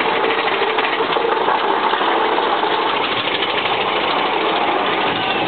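Mine-train roller coaster cars running along the track at speed: a loud, steady rattling clatter.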